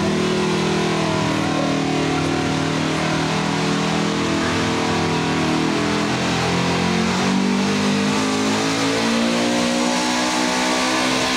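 Ford pickup truck's engine running at high revs under heavy load as it drags a weight-transfer pulling sled. The pitch holds steady, wavers about seven seconds in, then climbs near the end.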